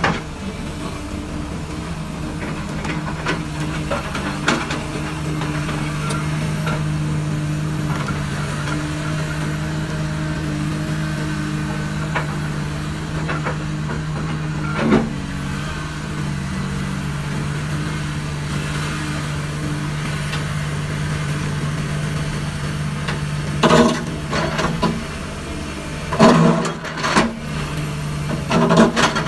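Komatsu PC300 hydraulic excavator's diesel engine running steadily under load. In the last few seconds the steel bucket knocks and scrapes loudly against a rock boulder several times.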